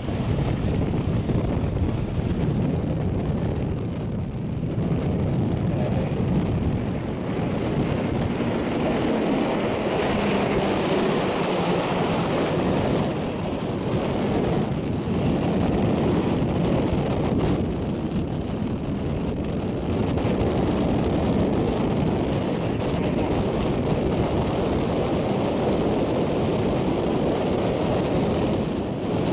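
Embraer A-29 Super Tucano turboprop aircraft flying, a steady engine noise that rises and dips slightly, with wind on the microphone.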